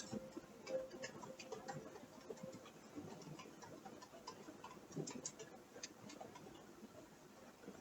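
Faint, irregular creaking and ticking clicks in a quiet room, coming at uneven intervals, a small cluster about five seconds in.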